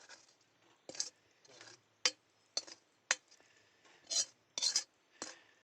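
A metal spatula scraping and clinking against a pan as a holy-basil stir-fry is tossed: about nine short, sharp strokes, roughly one every half second.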